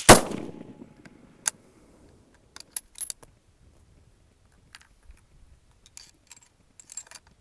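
A single shot from a Stevens 200 bolt-action rifle in .223, firing a handloaded test round, with its report dying away over about a second. It is followed by a scattering of sharp metallic clicks as the bolt is worked to eject the spent case and chamber the next round.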